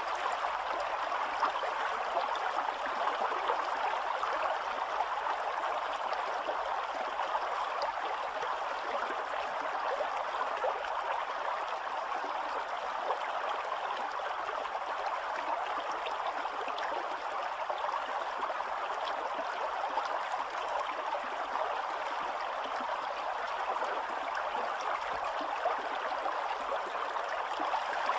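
Spring-fed stream flowing and rippling over stones in a shallow channel, a steady rush of running water.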